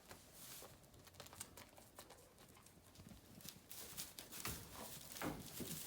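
Faint, scattered steps and shuffles of feet or hooves on the ground, with a few sharp clicks.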